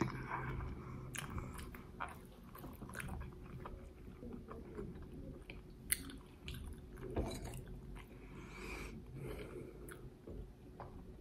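Close-up chewing of a mouthful of rice with stewed aubergine and dried fish: soft, wet mouth sounds with scattered sharp clicks, the strongest two a little past the middle.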